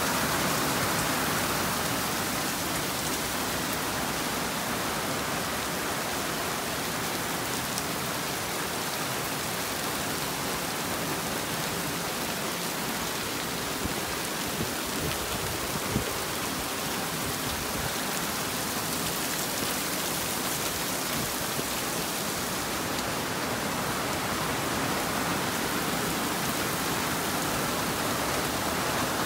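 Heavy rain pouring down steadily, an even hiss, in a downpour that has flooded the river up to the cabin. A single sharp click about halfway through.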